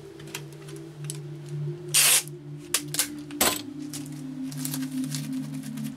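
Strapping tape pulled off its roll in one short, loud burst about two seconds in, with crackling and sharp clicks of stretch-wrap plastic as the tape is pressed down around a wrapped sewing machine. A faint low steady hum runs underneath.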